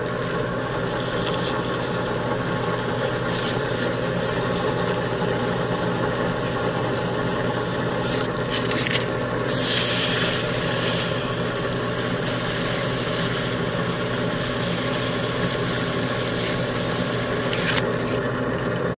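Drill press motor running steadily, spinning an engine valve while sandpaper is held against the valve head, with a scraping hiss of the sanding that grows louder about halfway through. The valve head is being sanded down and polished to reshape it for better airflow.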